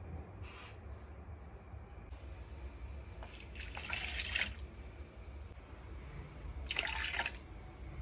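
Water poured from a glass jug into a plastic mixing bowl, splashing for over a second about three seconds in. Two shorter bursts of noise come just after the start and near the end, over a low steady hum.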